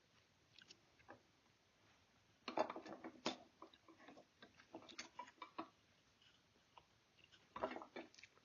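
Quiet clicks and knocks of a clamp and small metal parts being handled and set on a wooden rifle stock, in clusters about two and a half seconds in, around five seconds, and near the end.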